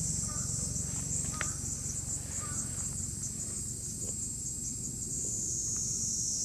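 Steady, high-pitched insect chorus with a fast flicker, over a low background rumble. A few faint short chirps come in the first two or three seconds.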